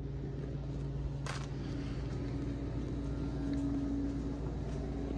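A steady low machine hum made of several fixed low tones, with a brief rustle about a second in.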